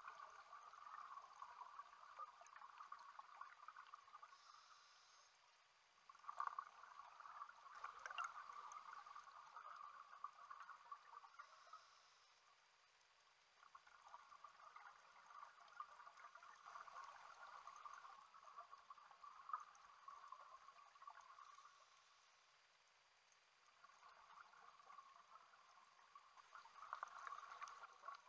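Faint bubbling of a scuba diver's exhaled air from a regulator underwater. It comes in four long bursts of several seconds each, with short pauses between breaths.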